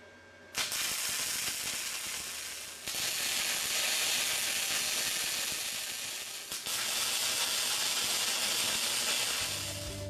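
Flux-core wire welder's arc crackling and hissing while tack welding a steel bushing, in three runs with short breaks about three and six and a half seconds in.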